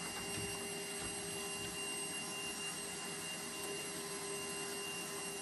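Shop vacuum running steadily with a constant motor whine, its hose sucking up dust and debris from the floor.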